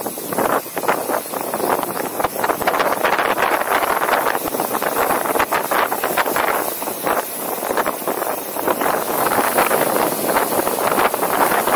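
Wind rushing over a riding action camera's microphone as a mountain bike rolls along a dirt track, with steady tyre noise and many small knocks and rattles from the bumpy ground.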